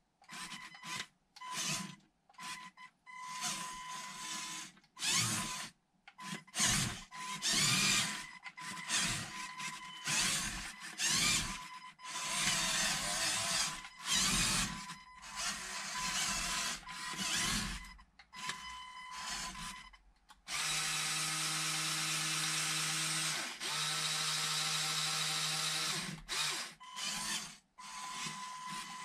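LEGO Powered Up L-motors and their gear trains running in short stop-start bursts as the remote-controlled model drives and steers, then running steadily for about five seconds with one brief break near the end.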